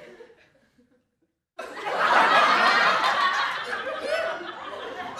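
Crowd laughter sound effect: the tail of one laughing crowd fades out, and after about a second of near silence a new group bursts into loud, mixed laughter all at once.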